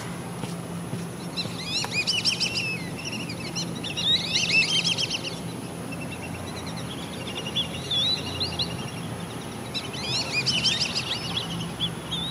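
Small wild birds chirping in four quick bouts of short rising notes, over a steady low hum.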